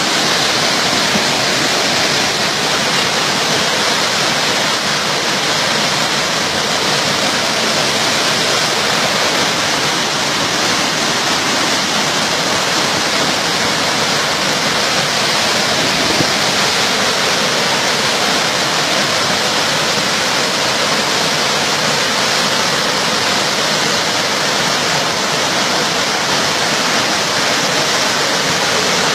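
Flash-flood torrent of muddy water rushing through a village street, a loud, steady rush without let-up.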